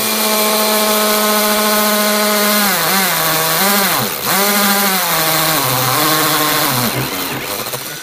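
Cordless drill motor running at speed as its bit cuts through a plastic container lid, with the scrape of the cutting. From about three seconds in its pitch sags several times as the bit loads the motor, dipping sharply near the middle, and it winds down near the end.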